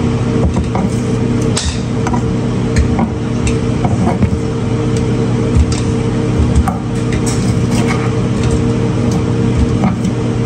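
Metal kitchen tongs clicking and tapping against a wooden cutting board and a ceramic bowl as pieces of dried beef are moved into the bowl. A loud steady appliance hum runs underneath.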